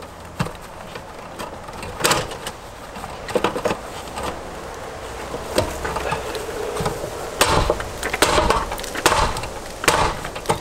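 Circuit breakers being struck hard to force them onto a Zinsco panel's bus: a series of sharp, irregular knocks and clacks. They have to be hit in because the panel's bus is damaged from arcing and will not let them seat.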